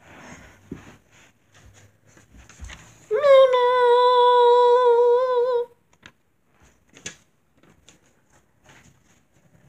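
A child's voice holding one sung note for about two and a half seconds, starting about three seconds in. Faint rustling and knocks come before and after it.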